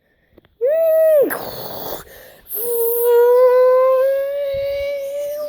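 A child's mouth-made sound effects: a short high "eee" that rises and then drops away, a hissing burst, then a long held tone that slowly climbs in pitch.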